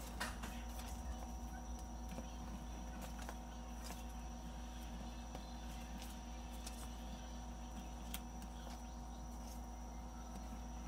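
Steady low electrical hum and room tone, with a few faint clicks and taps from small objects being handled.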